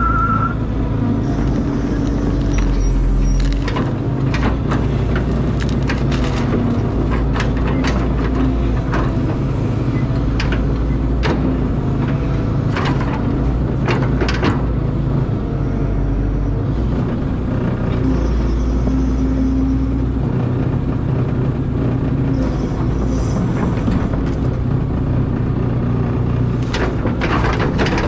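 Caterpillar excavator's diesel engine running steadily under working load, with frequent sharp knocks and clanks scattered through it.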